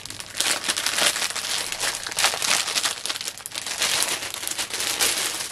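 Thin clear plastic packaging bag crinkling and rustling continuously as it is pulled open and handled, an item being drawn out of it.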